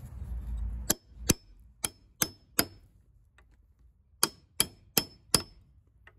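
A hammer striking a steel nail set to sink nail heads below the surface into countersunk holes in a wooden board: quick ringing metal taps, five in a row, a pause, then four more.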